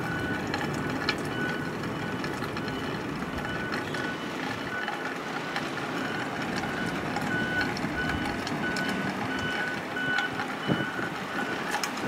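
A vehicle's reversing alarm sounding a steady series of short, evenly spaced beeps, faint and clearest in the second half, over a steady background hiss.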